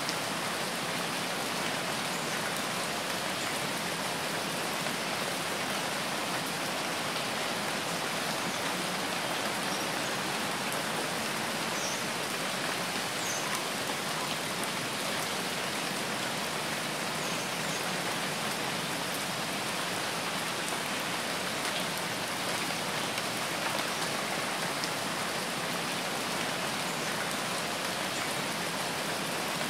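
Steady rain falling, an even hiss that holds constant without breaks or changes.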